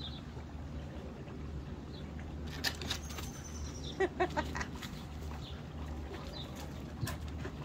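Garden ambience: faint bird chirps over a steady low hum, with a falling whistle about three seconds in and a quick run of three short, high-pitched calls about four seconds in.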